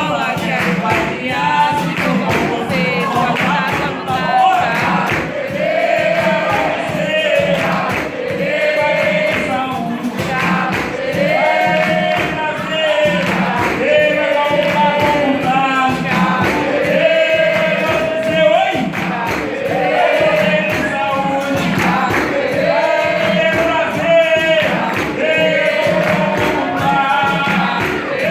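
Capoeira roda music: a group sings a capoeira song together over steady percussion and hand claps.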